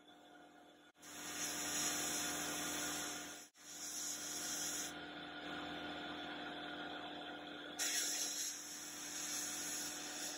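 Sandblasting cabinet's blast gun hissing in bursts as it strips paint from a pressed-steel toy body part, over a steady hum. The hiss comes on about a second in, eases around five seconds and starts strongly again near eight seconds.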